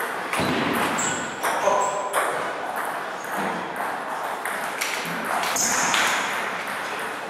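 Table tennis balls clicking irregularly off tables and bats in rallies, each click trailed by the echo of a sports hall, with scattered voices.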